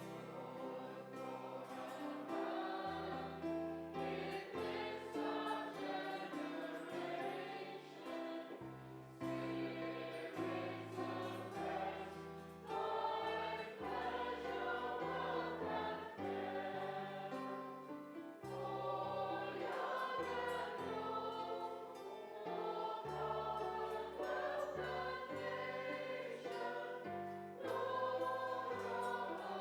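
Voices singing a hymn together over instrumental accompaniment, starting right at the outset, with a steady bass line moving note by note beneath.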